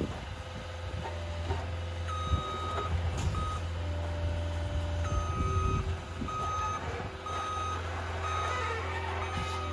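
Skid steer's backup alarm beeping about once a second as the machine reverses, over its running diesel engine. The beeping starts about two seconds in, and a couple of knocks come near its start.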